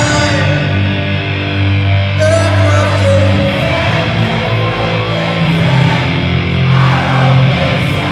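Rock band playing live at full volume: distorted electric guitar over bass and drums.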